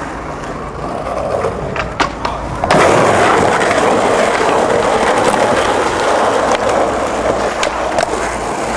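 Skateboard wheels rolling on rough concrete, with a couple of sharp clacks from the board about two seconds in. After that the rolling turns louder and runs steadily.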